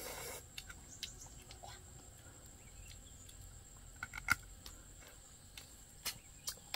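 Someone eating boiled snails: a short sucking noise at the start, then a few sharp clicks, like shells or utensils knocking, over a faint steady high insect whine.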